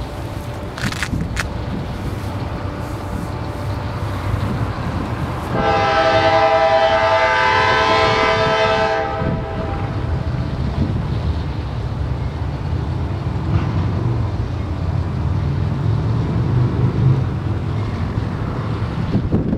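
CSX diesel freight locomotive's air horn sounding one long blast of about four seconds, starting about five seconds in, over the steady low rumble of the train.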